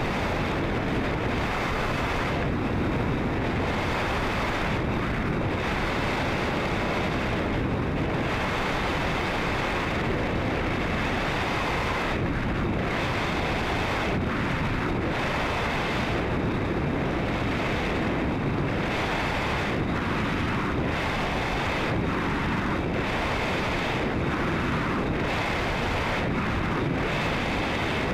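Steady rush of wind noise on a sounding rocket's onboard camera microphone as it falls under its trailing drogue ballute, with short irregular flutters in the hiss.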